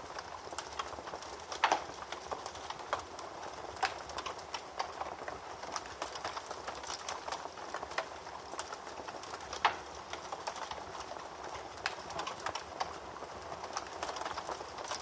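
Wood fire burning in a fireplace: a steady hiss full of irregular crackles and sharp pops. Two pops are louder than the rest, one early on and one about two-thirds of the way through.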